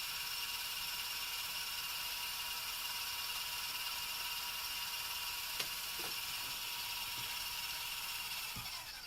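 LEGO ceiling fan's small electric motor running with a steady whir and a high whine, with a couple of light clicks about halfway through. Near the end the fan spins down and the whine falls in pitch.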